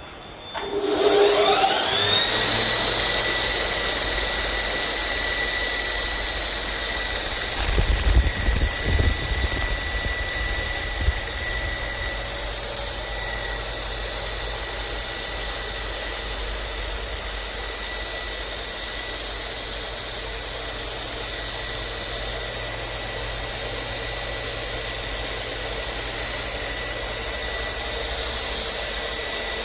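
Pedestal abrasive belt grinder with a three-phase 2800 RPM motor spinning up. Its whine rises over about two seconds and settles into a steady high whine with the hiss of the running belt. A low rumbling with a few thuds comes in about eight seconds in.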